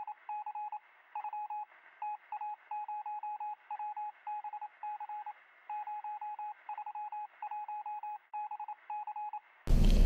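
A run of electronic censor bleeps at one steady pitch, short and longer beeps with brief gaps between them, standing in for blanked-out words.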